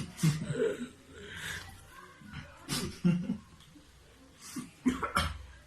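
A person coughing and clearing the throat in a string of short, sudden bursts while eating a sour lemon half, the sourness catching in the throat.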